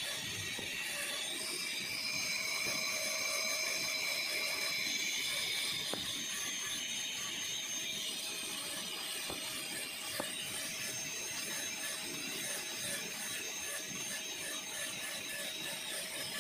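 High-speed dental handpiece whining steadily as its bur grinds down the buccal cusps of a plastic practice molar, cutting dry for a full metal crown's occlusal reduction.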